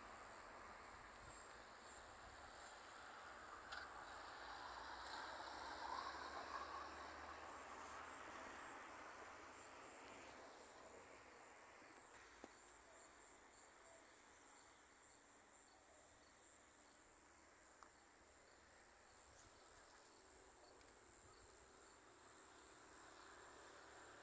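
Faint, steady high-pitched trilling of crickets, unbroken throughout, over a soft even background hiss.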